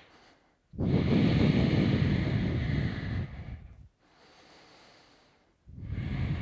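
A man breathing deeply and audibly during a held yoga pose: two long, loud breaths of about three and two seconds, each with a much quieter breath before it.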